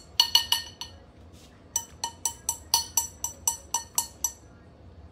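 Metal fork clinking against a ceramic bowl while scooping food, each strike ringing briefly at the same pitch: a quick few clinks in the first second, then after a pause a steady run of about a dozen, roughly three a second, stopping a little past four seconds in.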